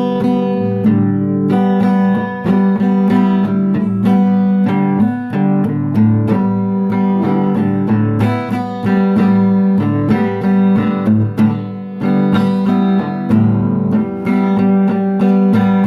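Acoustic guitar strummed in a steady rhythm through a chord progression, the instrumental introduction before the singing begins.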